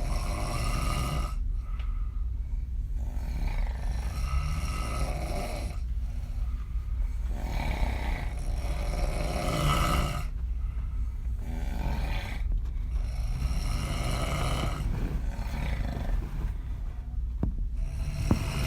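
A woman snoring heavily on her back with her mouth open: rough, rattling snores with each breath, coming in long pulls every three to four seconds with short pauses between.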